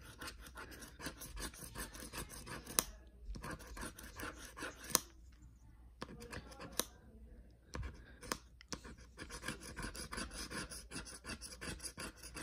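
Plastic scratcher rubbing the coating off a lottery scratch-off ticket in quick back-and-forth strokes, with a few short pauses and an occasional sharp tick. The coating is hard to scratch.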